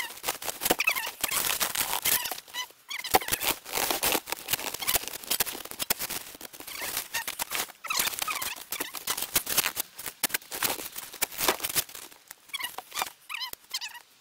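Irregular crunching and scraping of packed snow and ice under boots and a steel spade, stamping and chipping around a mower deck frozen into the ground to break it loose.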